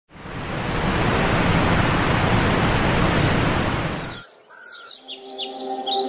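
Steady, even rush of Sekumpul Waterfall's falling water, cutting off abruptly about four seconds in. After the cut, birds chirp and soft held music notes come in.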